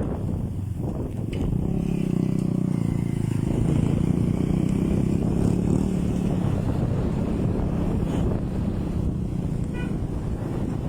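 Boat motor running steadily, a little louder from about two seconds in.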